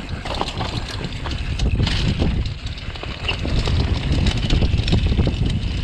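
Mountain bike rattling and knocking over rough, dry dirt trail at speed, tyres running over loose earth and leaves, with wind rushing over the microphone. Dense, irregular clicks and knocks throughout.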